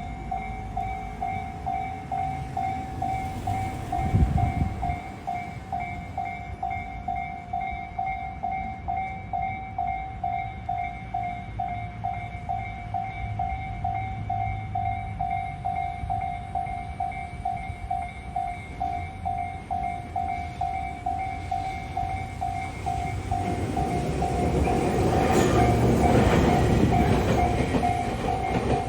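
Japanese level-crossing warning bell on the Tobu Kameido Line: an electronic ding repeating steadily and evenly throughout. About four seconds in there is a brief low thump. From about 23 seconds an electric train rumbles through the crossing, loudest near 26 seconds, with the bell still sounding.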